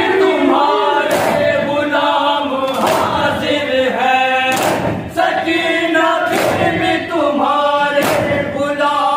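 A noha chanted by a group of men, with strong unison chest-beating (matam) strikes landing about every second and a half to two seconds.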